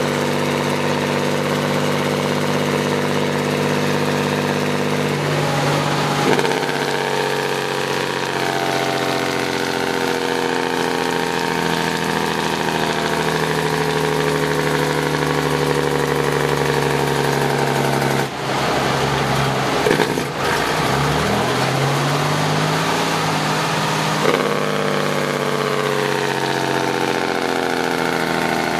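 The 1965 White Freightliner cabover's Cummins 250 diesel running loud through straight pipes, heard from inside the cab as the truck drives. The engine note drops and climbs again about six seconds in and again around twenty seconds in, as the truck is shifted through its gears.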